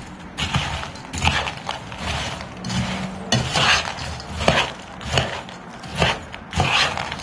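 A metal spoon stirring and tossing dry broken biscuit pieces and walnuts in a large saucepan: a crunchy rustling clatter in repeated strokes, with the spoon scraping and knocking against the pan.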